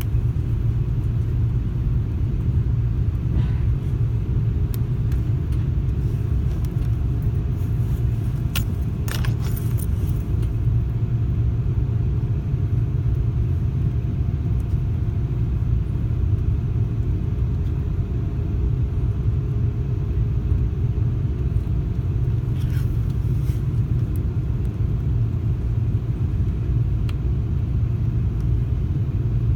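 Cathay Pacific Airbus A330-300 airliner, a steady low rumble that holds an even level, with a few faint brief rattles.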